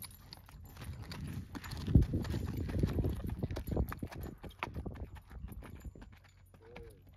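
Hooves of a ridden Arabian horse thudding and scuffing on dirt arena footing as it walks and turns, in irregular steps with the heaviest footfalls about two seconds in.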